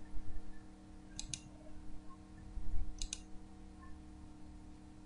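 Computer mouse button clicking twice, each a quick press-and-release pair, as beads are painted in one by one. Low dull thuds come near the start and just before the second click, over a steady low hum.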